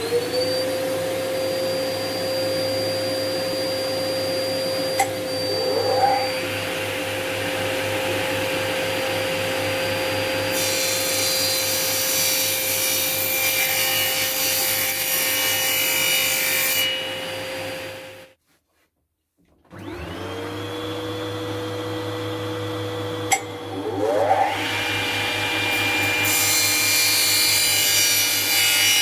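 An electric saw spins up to a steady pitch and its blade cuts through thin MDF board with a loud hiss. It stops suddenly, then spins up again about two-thirds of the way through for a second cut.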